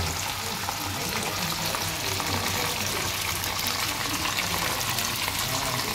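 Meatballs in tomato sauce cooking in a frying pan: a steady sizzle with many fine crackles.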